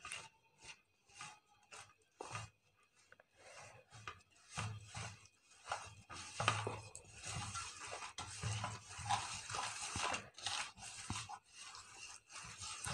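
A hand rubbing granulated sugar into melted butter in a stainless-steel bowl, making gritty scraping strokes against the metal. The strokes are sparse at first and come more steadily from about four seconds in.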